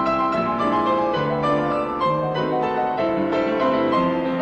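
Piano playing an instrumental interlude of steady chords and melody between sung verses of a song.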